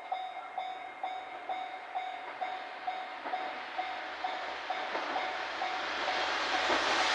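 Japanese level crossing's electronic warning bell ringing at about two strokes a second while a KiHa 47 diesel railcar approaches, its running noise growing steadily louder over the second half.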